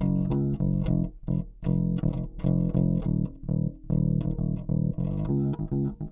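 OLP MM3 passive five-string electric bass played fingerstyle, a steady run of short plucked notes several a second, with both halves of its single humbucker mixed at full volume.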